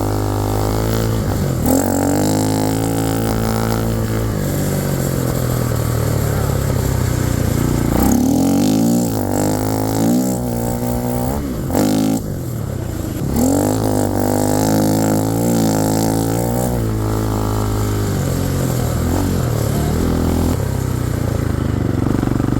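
Can-Am DS450 single-cylinder engine in a Power Wheels ride-on running under throttle, its revs rising and falling again and again as it is driven, with short lulls about eight and twelve seconds in.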